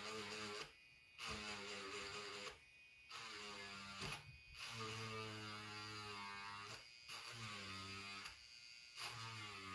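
The small motor of a NorthridgeFix Grinding Pen NF.V2 whines in about six short runs, stopping briefly between them, its pitch wavering slightly. The bit is grinding away the plastic body of an integrated circuit to get down to the metal of a lost pin.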